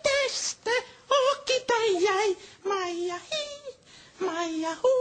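A young male casting contestant singing unaccompanied in a high, wavering voice, in short phrases with brief breaks between them.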